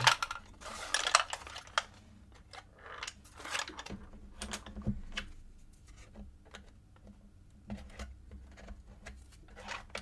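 Esc Welt Space Box, a laser-cut plywood puzzle box, being handled: small wooden pieces clicking, knocking and sliding against each other, busiest in the first couple of seconds and sparser after.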